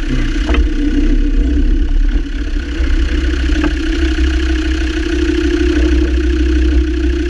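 Land Rover Defender Td5's five-cylinder turbodiesel running steadily, with two short sharp knocks, one about half a second in and one near the middle. The knocks point to the rattling double-cardan propshaft joint.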